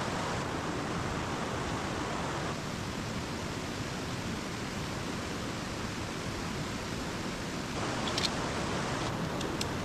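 Mountain stream rushing steadily, with a few short clicks about eight seconds in and near the end.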